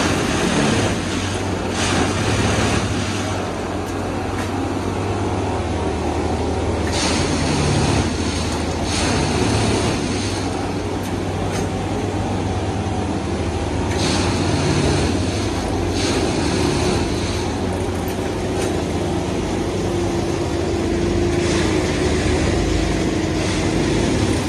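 Plasser 09-3X dynamic track tamping machine at work: a loud, steady machinery din under a low hum. Bursts of hissing and rattling come in pairs about every seven seconds.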